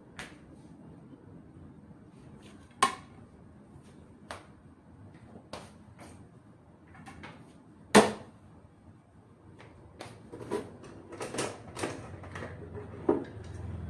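Scattered kitchen knocks and clatter: two sharp knocks about three and eight seconds in, then a run of lighter clatter near the end as things on the counter are handled.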